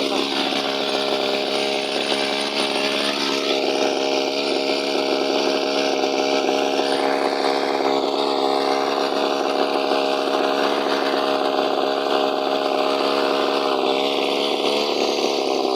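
Small two-stroke engine running steadily at a constant speed.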